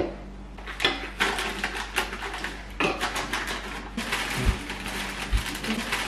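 Handling noise at a kitchen counter: a few sharp clicks and knocks, then from about four seconds in the crinkly plastic bag of baby spinach rustling steadily as leaves are pulled out, with a few low bumps.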